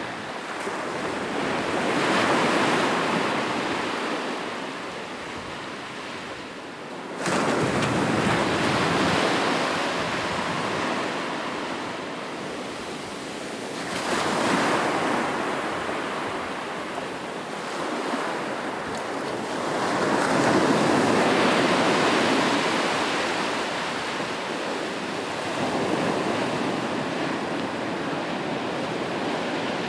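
Sea waves breaking and washing in, the surf swelling and fading every five or six seconds, with one wave crashing in abruptly about seven seconds in.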